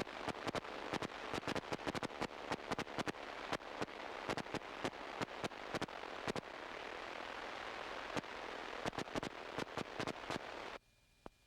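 Gunfire: rapid, irregular sharp cracks, several a second, over a steady rushing hiss. The sound cuts off abruptly near the end.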